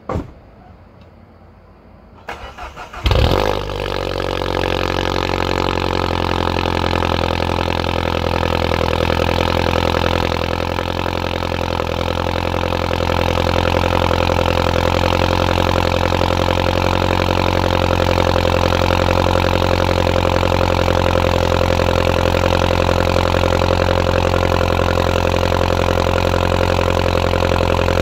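2013 Mini Cooper S (R56) 1.6-litre turbocharged four-cylinder heard at the exhaust tips starting up. The starter cranks briefly, the engine catches about three seconds in with a loud flare, then settles into a steady idle.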